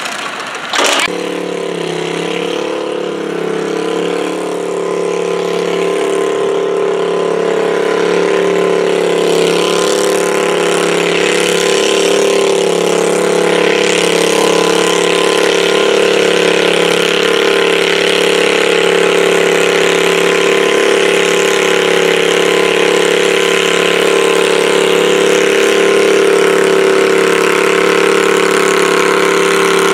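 Small garden pulling tractor's engine running steadily at full throttle as it drags a weighted pulling sled, at a constant pitch and growing gradually louder as it comes closer.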